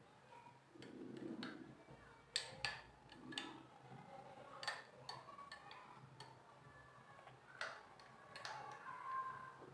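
Steel spoon tapping and clinking lightly against glass cups as grated raw mango is spooned onto each drink: a few faint, sharp clicks at irregular intervals, starting a couple of seconds in.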